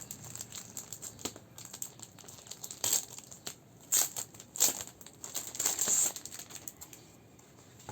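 Packaging crinkling and rustling in several short bursts as a tablet case is unwrapped, with a quieter stretch near the end.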